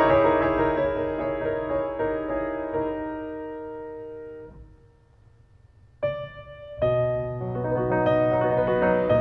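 Background piano music. Held chords fade almost to silence about five seconds in, then a single note sounds at about six seconds and the music picks up again.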